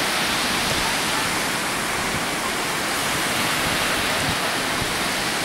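Steady rush of small waves breaking on a sandy beach, an even noise without pauses.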